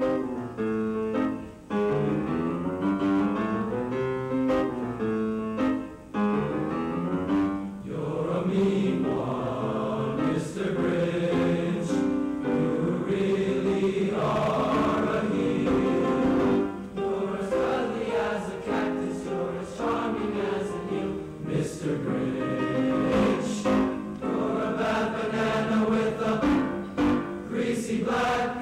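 Junior high school choir singing a song in parts, the voices moving together through the phrases.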